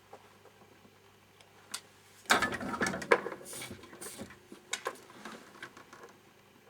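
Small objects being handled on a workbench: a sudden burst of clattering and knocking about two seconds in, then scattered clicks that fade out near the end.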